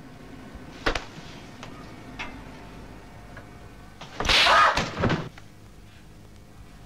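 A sharp knock about a second in, then a loud rustling smack lasting about a second, about four seconds in, as a bouquet of baby's breath is swatted.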